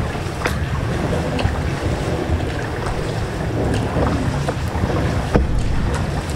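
Kayak paddling inside a concrete culvert: a few sharp splashes and drips of a paddle in the water, over a steady low rumble.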